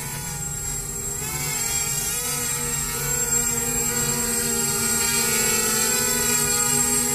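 250-size FPV quadcopter's motors and propellers whining, the pitch wavering up and down as the throttle changes, growing a little louder in the second half.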